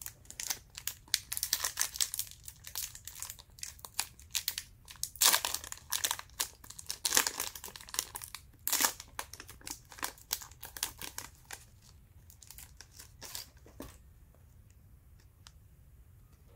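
Wrapper of a Panini Hoops trading-card pack being torn open and crinkled: a dense run of sharp crackles that thins out and stops about two seconds before the end.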